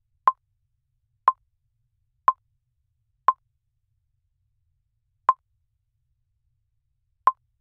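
Countdown timer's short electronic beep, one each second in step with the count, with two beats skipped in the second half.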